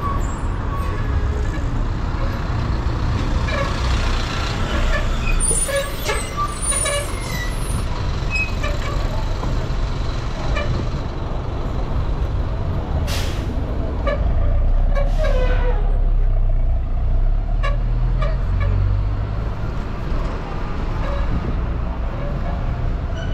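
Steady city traffic rumble. About halfway through, a bus passes close by with a loud, low engine sound, and its air brakes give two sharp hisses about two seconds apart.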